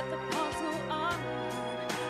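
A woman singing live into a handheld microphone over an instrumental accompaniment.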